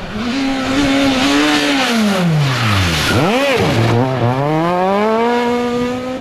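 Škoda Fabia rally car engine passing close. The revs fall away as it comes into a corner, jump sharply about three and a half seconds in as the tyres scrabble on loose mud and gravel, then climb steadily as the car accelerates away.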